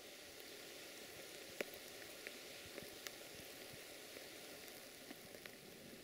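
Faint steady hiss with a few scattered soft ticks and clicks, the sharpest about a second and a half in.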